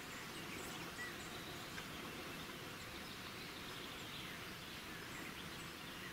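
Steady outdoor background noise with a few faint, brief bird chirps.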